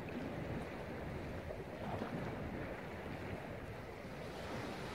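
Steady rushing noise, strongest in the low range, with no distinct events.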